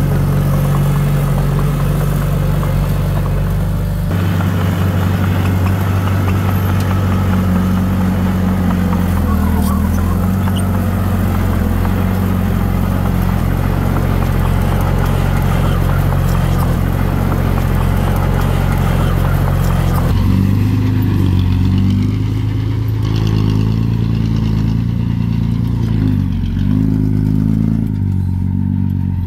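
Heavy earthmoving machine's diesel engine running hard under load, steady at first, then its speed stepping up and down repeatedly from about two thirds in.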